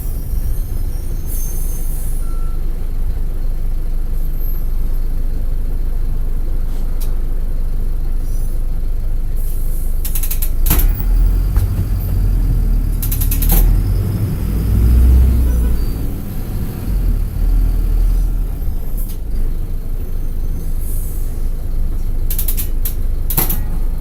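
Mercedes-Benz OF-1722M bus's OM-924 LA four-cylinder turbodiesel running, heard from on board, with a low drone that swells about halfway through. Several short hisses of compressed air from the air brakes cut in, twice close together near the middle and once near the end.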